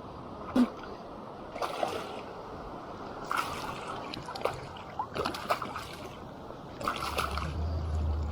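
Several short splashes at the surface of shallow river water over the steady rush of the current: a hooked trout thrashing as it is reeled in. A low rumble comes in near the end.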